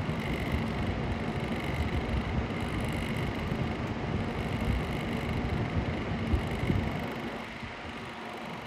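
PC case fan running with a steady hum over an uneven low drone, which the owner takes for a worn-out fan bearing. The sound grows quieter about seven seconds in.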